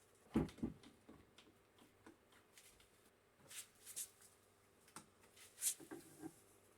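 Handling noises as a cast-iron woodworking vise is held up and clamped under a bench: two dull thumps about half a second in, then scattered light clicks and short scrapes.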